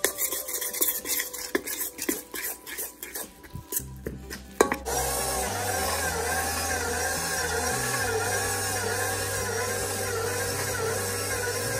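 A utensil scraping and clicking against a stainless steel mixing bowl as flour and oil are stirred. About five seconds in, this gives way to a KitchenAid Professional 600 stand mixer running steadily, its dough hook kneading bread dough with a rhythmic rise and fall. Background music plays under the mixer.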